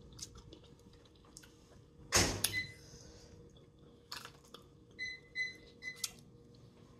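Close-up mouth sounds of eating seafood boil: chewing and sucking sauce off the food, with scattered wet clicks and one loud, brief mouth sound about two seconds in. Several short high-pitched beeps sound, mostly between five and six seconds in.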